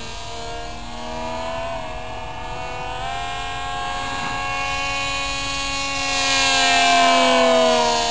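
Electric RC foam plane in flight: a HIMAX 2015-4100 brushless motor, geared 6.6:1, turning a GWS propeller cut to 9x6, giving a steady pitched whine. The pitch rises and falls several times with throttle and the plane's passes; it grows loudest about two-thirds through, then the pitch glides down near the end.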